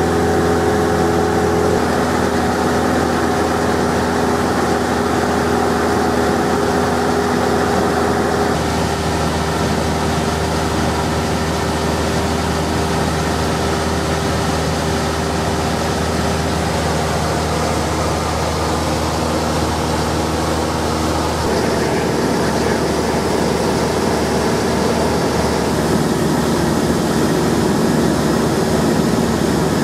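Steady drone of a Cessna 172's single piston engine and propeller heard inside the cabin in flight, its tone changing abruptly a few times.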